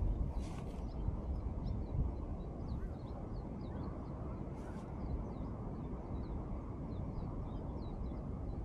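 Outdoor wind rumbling on the microphone, with many faint, short, high bird chirps and two brief rustling hisses, about half a second and nearly five seconds in.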